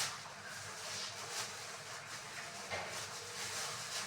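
Faint steady hiss with a few soft knocks of kitchen things being handled while tidying up.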